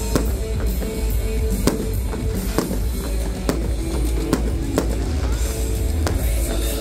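Fireworks going off in sharp bangs at irregular intervals, over a continuous low rumble and loud music with drums.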